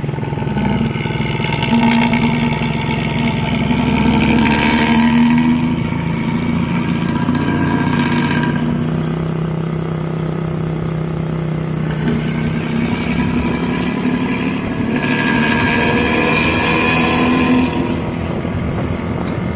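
Intercity bus's diesel engine running through a growling 'ngorok' exhaust, rising in revs about four seconds in and again for a couple of seconds near the three-quarter mark.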